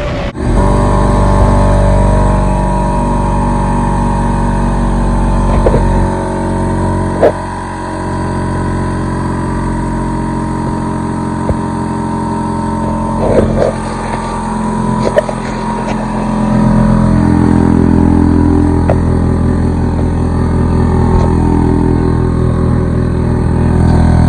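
RIDGID 6-gallon pancake air compressor's oil-free pump motor starting up on its first run and running steadily as it fills the tank, with a few sharp knocks from handling. It gets louder about two-thirds of the way through.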